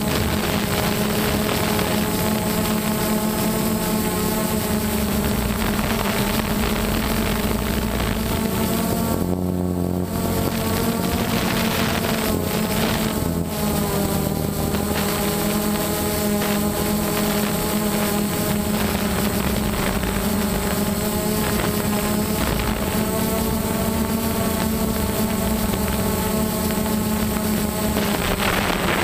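DJI Phantom quadcopter's four brushless motors and propellers buzzing steadily in flight, heard close up from the camera on its airframe. The mix of tones shifts briefly about ten seconds in and again a few seconds later.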